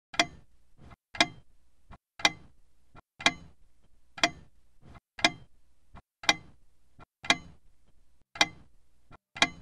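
Film-leader countdown sound effect: a sharp tick once a second, like a clock, with a fainter click just before each tick.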